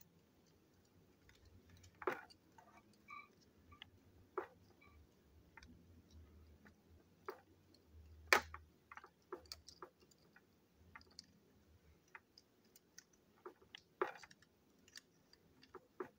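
Scattered small clicks and taps from handling the plastic parts of a Plarail toy train during disassembly, irregular, with the sharpest click about eight seconds in.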